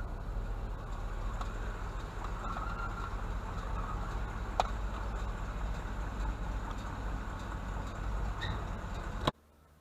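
A vehicle running with a steady low rumble, with a single sharp click about four and a half seconds in; the sound cuts off suddenly near the end.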